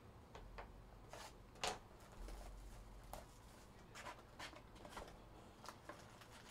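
Faint handling sounds: scattered light taps and brief rustles, the loudest a sharp tap about a second and a half in.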